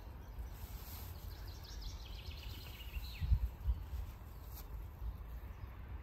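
Outdoor ambience with wind rumbling on the microphone. A bird sings a short run of quick high notes ending in a falling note, about two seconds in.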